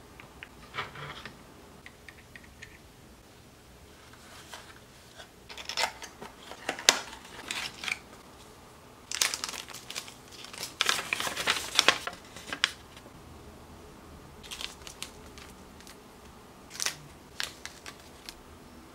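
Thin clear plastic parts bag crinkling in the hands in bursts, loudest around the middle, with scattered small clicks and taps of plastic model parts being handled.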